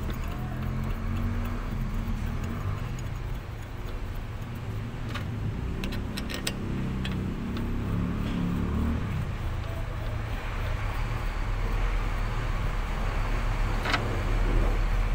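A truck's diesel engine idling steadily, with a few light clicks of filter parts being handled about five to six seconds in and again near the end.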